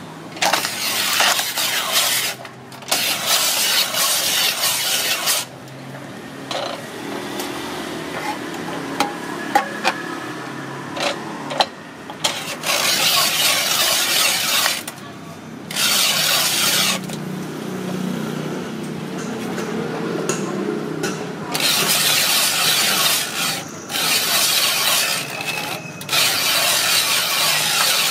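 Ice-shaving machine shaving a block of ice into a bowl: a rasping, grinding hiss that comes in about seven runs of two to three seconds each, stopping sharply in between.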